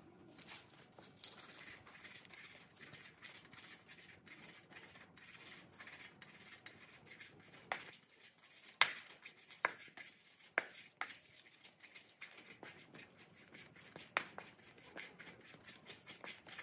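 Wooden pestle mashing red chilli in a small steel bowl: faint scraping and grinding with scattered light taps, and a few sharper knocks against the bowl in the middle.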